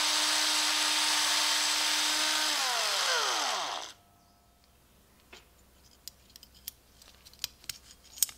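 Electric power tool running with a loud, steady whir, switched off about two and a half seconds in and spinning down with a falling pitch until it stops. A few light clicks and taps follow.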